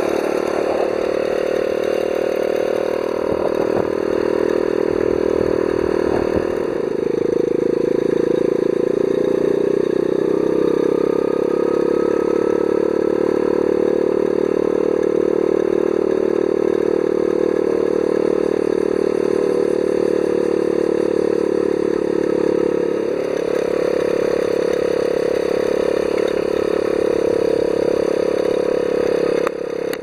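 Honda Z50Z Monkey's small single-cylinder four-stroke engine running as the minibike is ridden, with some rattling in the first few seconds. The engine note rises about six seconds in and then holds steady, dips briefly a little past twenty seconds and picks up again.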